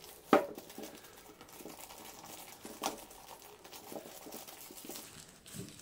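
Thin plastic bag crinkling and rustling as hands pull it open, with a sharp crackle about a third of a second in and another near three seconds.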